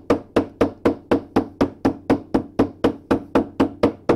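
A rapid, steady series of nylon-hammer blows on the steel drive shaft of a Fisher & Paykel direct-drive washing machine, about four a second, each with a short ring. The shaft is being driven out of the drum to free it.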